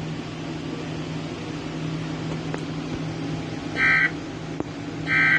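Radio broadcast hiss with a low hum, then two short, loud buzzing data bursts about a second apart. These are Emergency Alert System SAME digital tones, with the brief length of the end-of-message bursts that close an alert.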